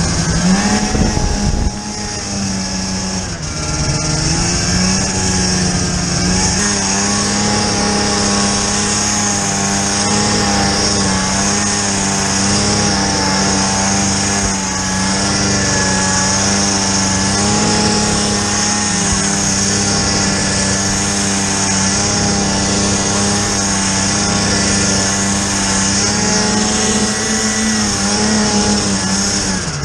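Snowmobile engine running steadily under way, its pitch dipping briefly a couple of seconds in, then rising again and holding, with a steady high hiss over it.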